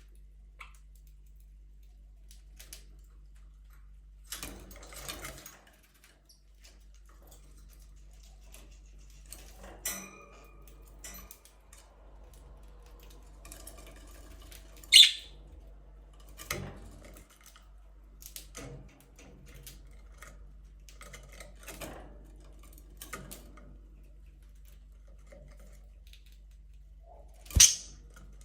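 Budgies moving about their aviary: scattered small clicks, scratches and rustles on perches and cage wire. A loud, brief, high-pitched sound comes about halfway through and a sharp knock near the end.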